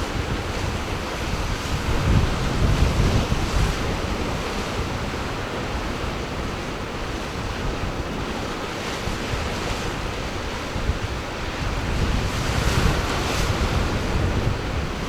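Ocean surf washing in steadily, with wind buffeting the microphone. The surf swells louder about two seconds in and again near the end.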